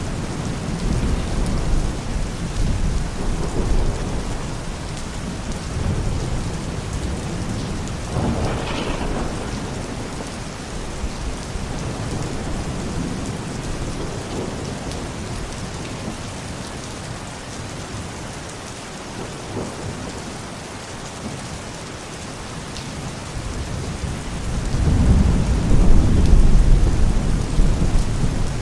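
Thunderstorm: steady rain falling, with thunder rumbling. A sharper thunder crack comes about a third of the way in, and a louder, deep rumble rolls in near the end.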